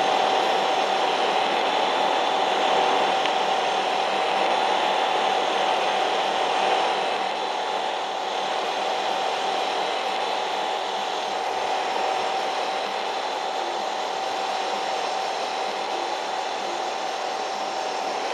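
Daikin split air conditioner running: a steady whirring rush of air with a constant hum tone through it, easing slightly about seven seconds in.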